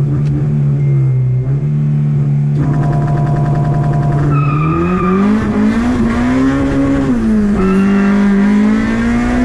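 Honda Civic EG's swapped-in K20A2 four-cylinder engine held at steady raised revs, then launching and pulling hard with the revs climbing. The pitch drops briefly about seven and a half seconds in as it shifts up, then climbs again.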